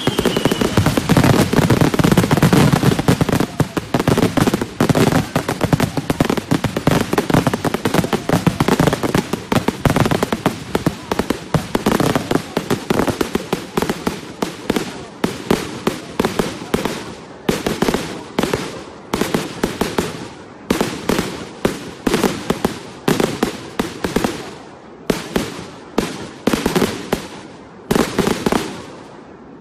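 Fireworks display finale: a dense barrage of bangs in rapid, overlapping succession, thinning to separate reports through the last dozen seconds or so. A short falling whistle sounds right at the start.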